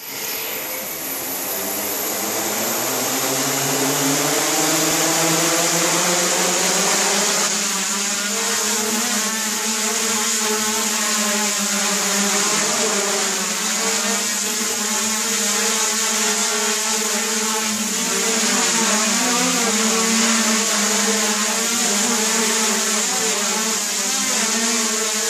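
Homemade quadcopter's four outrunner brushless motors and propellers whirring, strapped down for a PID-controller test. The pitch rises over the first few seconds as they spin up, then holds a steady drone that wavers slightly in pitch.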